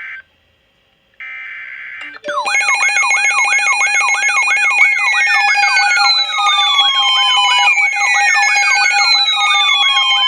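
Emergency Alert System header data bursts, a short buzzy burst and then, after a second's pause, another. Then a loud electronic alert tone starts: a steady tone layered with a warble about four times a second and slow falling sweeps, the attention signal that opens a new warning.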